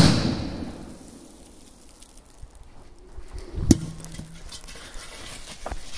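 A powerful firecracker goes off under a small metal can right at the start, the bang fading away over about a second. About 3.7 s in comes a single sharp knock with a short low ring as the can lands.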